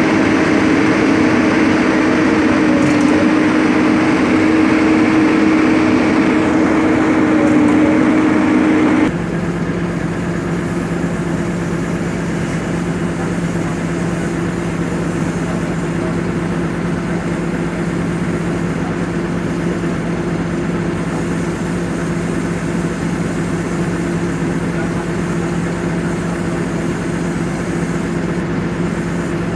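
Komatsu bulldozer's diesel engine running steadily. About nine seconds in the sound cuts to a quieter, lower, steady diesel engine idle: the excavator next to the stone crusher.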